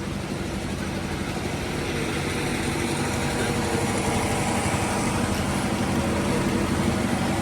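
DJ sound system of twelve bass speakers and two tops playing a sound-check track, a heavy, steady low drone that grows gradually louder.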